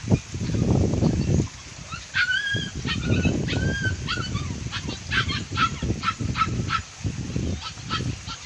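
A run of short, repeated animal calls, something like honks, starting about two seconds in, over loud, irregular low rumbling on the microphone.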